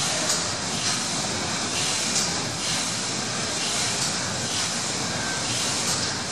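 A paddle-wheel steamer's steam engine running below full speed: a steady mechanical running noise with a rhythmic swish that repeats roughly twice a second.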